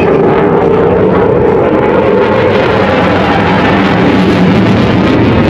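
Eurofighter Typhoon's twin EJ200 jet engines running loud and steady as the jet flies a barrel roll, with a droning tone in the noise.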